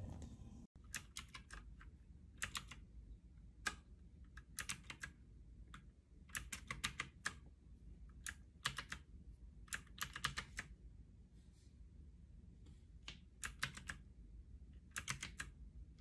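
Typing in short bursts on a typewriter-style mechanical keyboard with blue switches. Clusters of sharp clicks come with pauses of a second or more between them.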